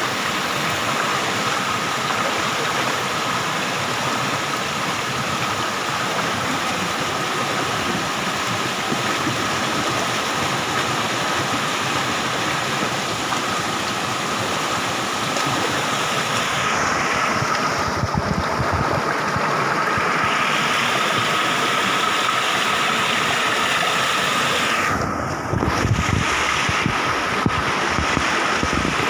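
Shallow stream rushing over rocks, a steady loud wash of running water, with a faint steady high tone running under it.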